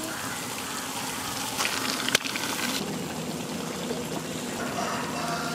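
Guava halwa sizzling and bubbling in ghee in a cooking pan as it thickens, a steady hiss, with one sharp click about two seconds in.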